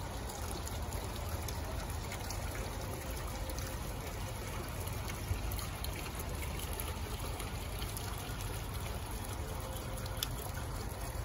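Garden water fountain running: a steady trickle and splash of falling water.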